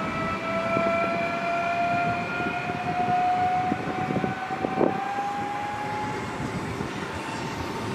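PKP Intercity Stadler FLIRT electric multiple unit on the move: its traction motors give a steady whine that climbs slowly in pitch as it gathers speed, over the rumble of wheels on the track.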